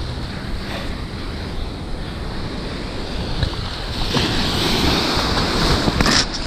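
Sea surf washing against a rocky jetty, with wind on the microphone. From about four seconds in a wave surges up over the rocks and the wash grows louder. There is a short knock near the end.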